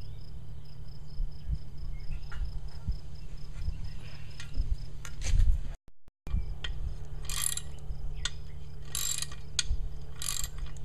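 Ratchet wrench clicking in short bursts about one and a half seconds apart, mostly in the second half, as it turns a welded-on nut to back a broken cap bolt out of an outdrive's upper housing. A steady low hum runs underneath.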